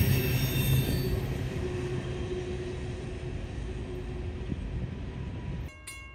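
Freight train rolling past on the rails, its rumble fading steadily as it moves away. Near the end it cuts off abruptly to a different sound: evenly spaced ringing strikes, about four a second, typical of a railroad crossing bell.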